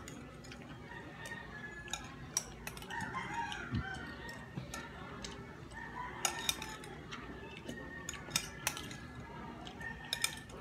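Metal spoon clinking now and then against a glass bowl as broth is scooped and eaten, with repeated wavering calls in the background.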